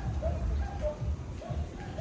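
A dog yipping over and over, short high calls about two or three a second, over a low rumble.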